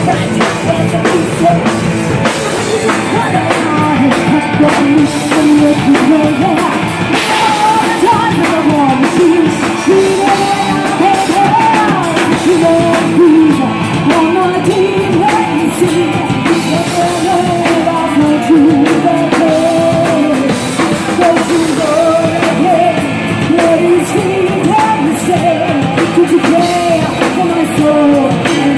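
Live rock band playing: a woman singing lead through a microphone over two electric guitars, bass and a drum kit.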